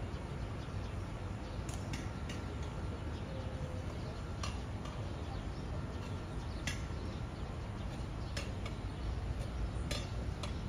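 Outdoor ambience of a busy pedestrian shopping street: a steady low rumble of the surroundings with a few sharp clicks and taps scattered every second or two.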